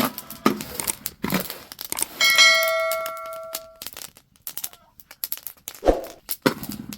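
Rustling and crinkling handling noise with scattered clicks. About two seconds in, a metal object is knocked once and rings like a bell for about a second and a half before fading.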